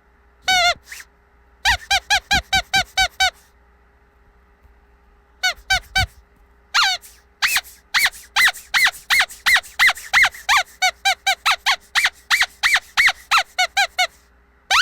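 Squeaky dog toy being squeezed over and over, each squeeze a short, high squeak. One squeak comes first, then a quick run of about eight. After a pause of about two seconds comes a long, even series at about three squeaks a second.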